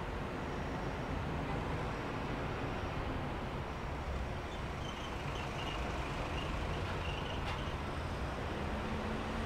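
Steady city street traffic noise: a continuous low rumble of passing road vehicles.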